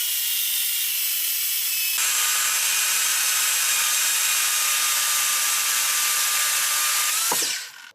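Chainsaw running at full throttle while cutting wood, a steady high whine that drops a little in pitch about two seconds in as the chain takes the load, then cuts off near the end.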